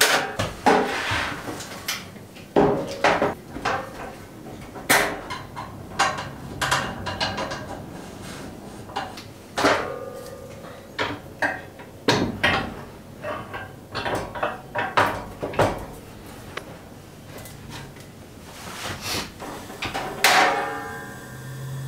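Sheet-metal clanks and clicks from a two-burner camp stove being opened: the latch, lid and fold-out side wind panels knock as they are moved into place, with a ringing clatter near the end.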